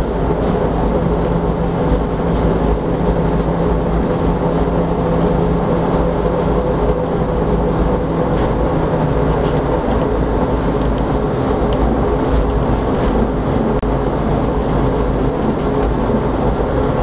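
Disneyland Mark VII monorail running at speed, heard from inside its rear compartment. Its rubber tyres make a steady low rumble on the concrete beam, with a few steady humming tones over it.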